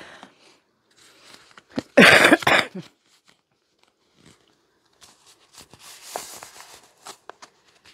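A woman's single hard cough about two seconds in, left over from a cold, followed later by softer scattered noises.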